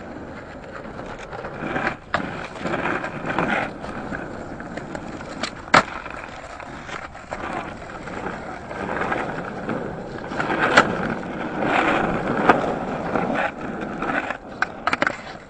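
Skateboard wheels rolling on pavement, with a few sharp clacks of the board hitting the ground.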